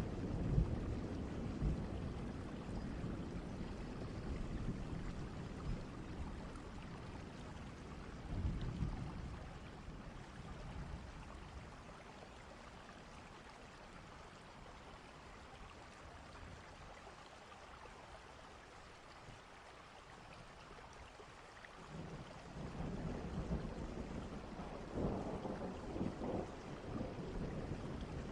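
A thunderstorm: steady rain with low rolling thunder. The thunder rumbles at the start and again about nine seconds in, dies back to rain alone, then builds again a few seconds before the end.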